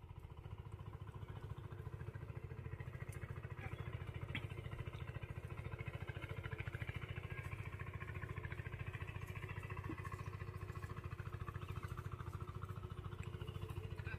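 A small engine running steadily with an even, rapid beat.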